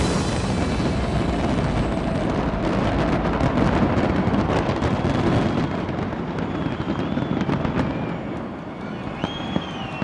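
Fireworks going off in a dense, rapid crackling barrage that thins out over the last few seconds, with a few high whistles near the end.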